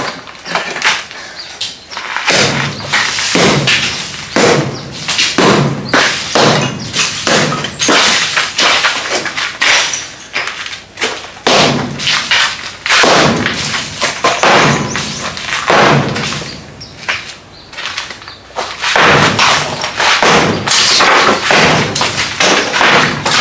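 Repeated heavy strikes breaking up a cement-and-brick wall, chunks cracking off and falling, about one or two blows a second with a short pause about three-quarters of the way through.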